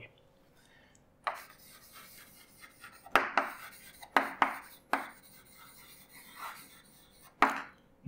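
Chalk writing on a chalkboard: scratchy strokes broken by a series of sharp taps as the chalk strikes the board.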